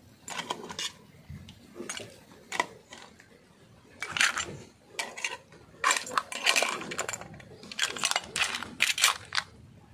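Metal ladle clinking and scraping in a metal cooking pot while cooked crabs are scooped into a ceramic bowl: an irregular string of sharp clinks and clatters of ladle on pot and crab shells.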